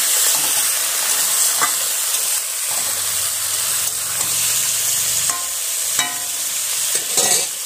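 Small khoira fish and vegetable pieces sizzling steadily in hot oil in a metal kadai, stirred with a spatula that scrapes and taps against the pan a few times.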